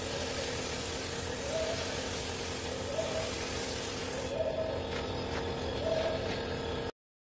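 Gravity-feed paint spray gun hissing steadily as compressed air atomises paint onto a truck tailgate, over a faint steady hum; the sound cuts off abruptly near the end.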